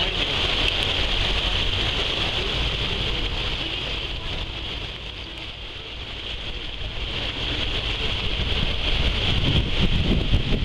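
Steady rushing noise of a motor boat under way: engine, wake water hissing behind the stern and wind buffeting the microphone. It dips briefly about halfway through, then builds again.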